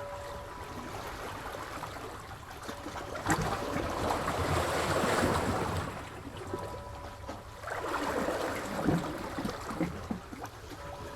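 Sea waves washing in. A larger wave comes in about three seconds in and lasts about three seconds, and a smaller one follows about eight seconds in.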